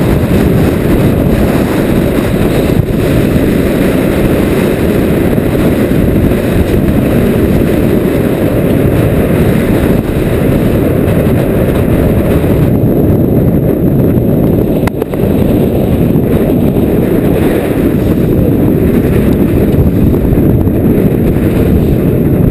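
Loud, steady wind buffeting a deck-mounted camera's microphone on a sailboat heeled over in 20–30 knot winds, with water rushing along the hull.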